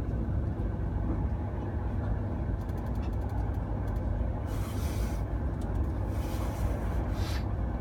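Cabin of a Virgin Pendolino electric train running, a steady low rumble. A run of quick clicks comes about three seconds in, and two short bursts of hiss come in the second half.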